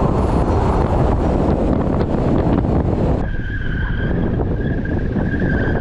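SUV doing donuts on a dry lake bed: engine running hard and tyres sliding across the dirt, under a loud rushing noise. About three seconds in, the sound changes to a steady high whine over the engine.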